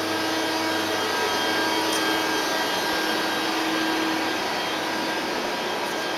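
Steady machine whir and hum with several steady tones running underneath it, from a powered-up Hardinge GS250 CNC lathe idling with its pumps and fans running.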